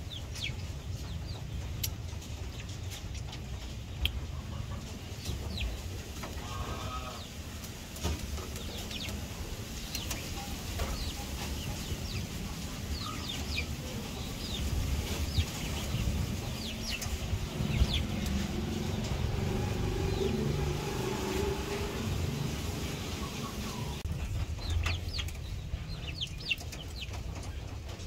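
Chicken clucking at intervals, with a longer wavering call near the middle, over scattered short high falling chirps and a steady low rumble.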